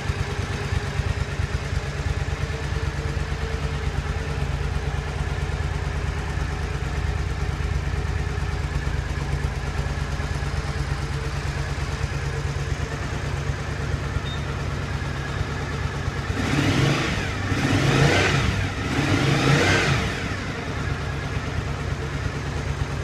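Triumph America's parallel-twin engine idling steadily, then blipped three times in quick succession near the end, each rev rising and falling in pitch.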